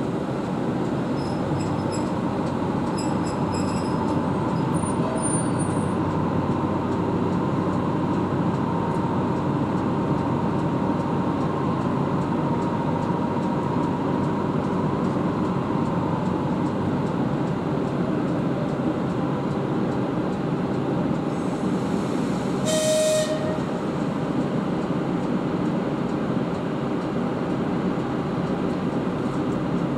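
ChS7 electric locomotive running with a steady rumble, plus one short horn blast about 23 seconds in.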